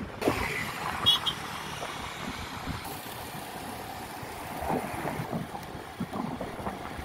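Wind rushing over the microphone and road noise from a motor scooter moving at speed, with its engine running low underneath.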